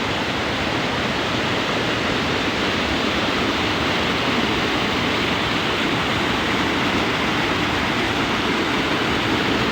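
Steady rush of fast-flowing water, an even unbroken roar.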